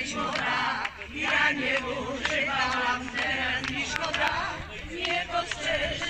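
A group of people singing a song together, several voices at once.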